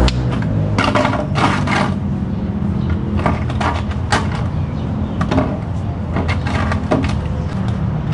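A ratchet wrench and socket clinking and clicking as they are handled and set down: a string of short, sharp metal knocks, some in quick little clusters, over a steady low hum.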